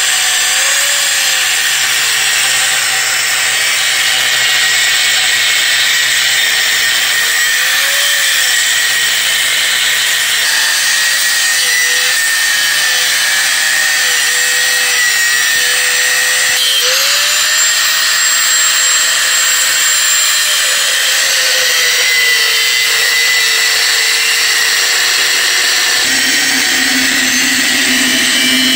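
High-speed angle grinder with a cutoff wheel cutting continuously into the steel shell of a refrigerator compressor, its motor whine dipping and recovering in pitch now and then.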